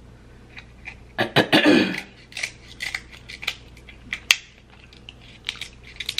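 Small cracks and clicks of king crab leg shell being snipped with kitchen scissors and picked apart by hand, with a louder crackling stretch about a second in and one sharp crack about four seconds in.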